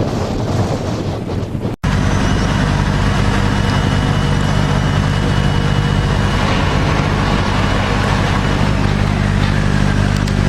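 Wind buffeting the microphone over rough water. After an abrupt cut a little under two seconds in, an engine drones at a steady speed with an even low hum.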